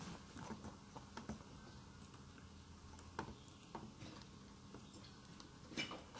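Near silence: quiet room tone with a few faint, irregularly spaced clicks, a little louder near the end.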